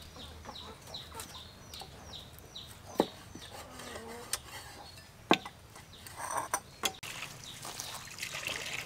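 Chickens clucking and chirping faintly, with a run of short, high chirps repeating every half second or so. A cleaver chops into roasted meat on a wooden board with two sharp knocks, about three and five seconds in.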